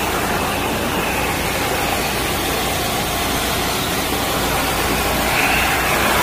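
Industrial vacuum cleaner built for collecting shot-blast steel shot, running with a steady rush of suction as its floor nozzle is pushed over a concrete floor.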